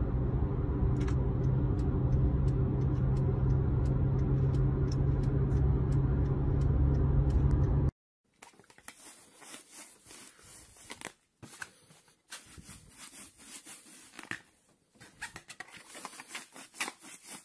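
Steady road and engine noise inside a moving car's cabin, loud and strongest low down, with faint high ticks over it. It cuts off suddenly about eight seconds in, giving way to much quieter scattered clicks and scrapes.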